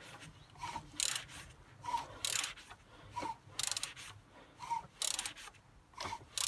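Ratchet wrench clicking in short runs, about one a second, as the BMW M57 diesel's crankshaft is turned over by hand stroke by stroke to bring the timing marks into line.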